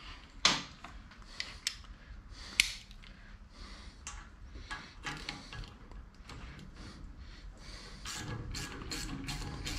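Shop work on a surface grinder: a few sharp metal knocks and clanks with scattered smaller clicks as parts and tools are handled, then near the end a faster, even run of clicks, about three a second.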